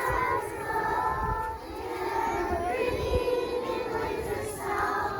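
Children singing together, holding long notes in a slowly moving melody, with a low rumble underneath.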